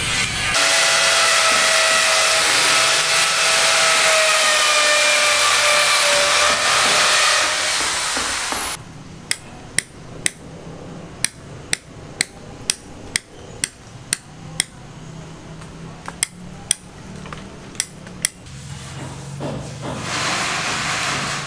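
A power tool runs with a steady, slightly falling whine for about eight seconds and cuts off abruptly. It is followed by a dozen or more sharp hammer strikes at an uneven pace of roughly two a second.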